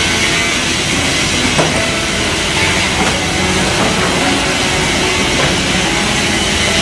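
Steady din of a plank multi rip saw and its roller feed conveyor running, with a few short knocks of boards on the rollers.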